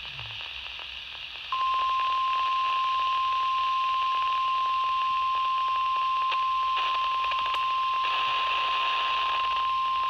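NOAA Weather Radio warning alarm tone: a single steady high tone that starts about a second and a half in and holds unbroken for about nine seconds, over the receiver's hiss. It is the weekly test of the alert signal that switches on specially built weather-radio receivers.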